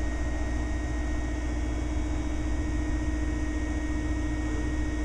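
Steady background hum: a low rumble with a few faint steady tones over it, unchanging throughout, with no splashes or other distinct events.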